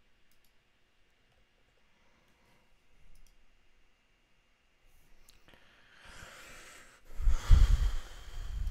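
A few faint mouse clicks, then near the end a breath in and a long heavy sigh blown close into the microphone, the breath buffeting the mic.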